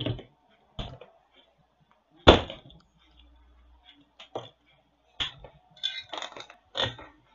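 Scattered sharp plastic clicks and knocks as a wall power adapter is pushed into a power strip and thin cables are handled on a plastic table cover. The loudest knock comes a little over two seconds in, and there is a quick run of clicks near the end.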